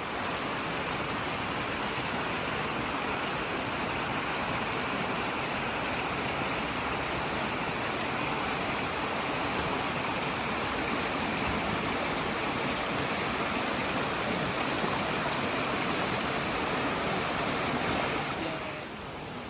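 Indoor waterfall, a steady rush of falling water that fades away near the end.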